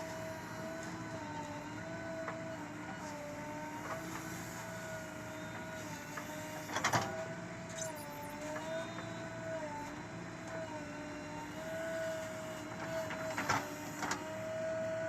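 Diesel engine of a working backhoe loader running steadily, its pitch wavering as the hydraulics take and release load. Two sharp metallic clanks, one about halfway through and one near the end, fit the bucket knocking.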